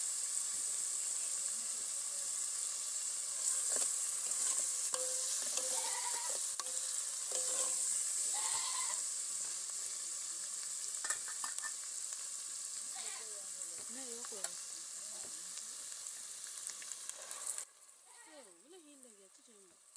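Oily soup base sizzling and bubbling in an iron pot over a wood fire, a steady hiss with small crackles. The sizzle cuts off abruptly near the end, leaving goats bleating.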